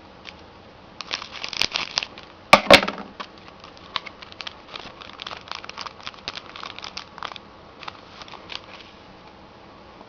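A hockey card pack's wrapper being torn open and crinkled, with two louder rips in the first three seconds, then light crackling and clicking as the cards are handled.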